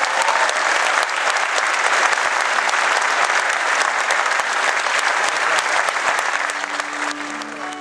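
Audience applauding in a hall, a dense patter of hand claps that thins out and fades near the end.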